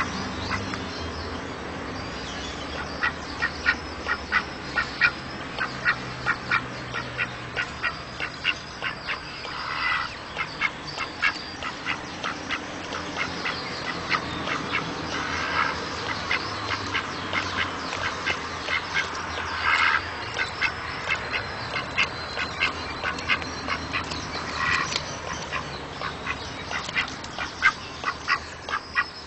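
A drake mallard-type duck calling in long runs of short, rapid quacks, about three a second, with a few longer calls mixed in.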